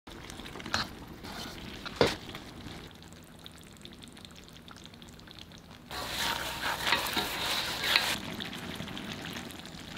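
Eggplant and ground pork frying in a wok and stirred with a wooden spatula. The sizzling starts suddenly about six seconds in and eases off about two seconds later. Before that there is only a faint hiss with two sharp clicks.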